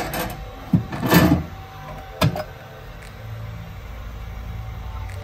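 Clunks and clatter of a shoe-repair sole heater's metal door and wire rack as a glued leather sole is put in to activate the adhesive: a rattling clatter about a second in, then one sharp knock about two seconds in.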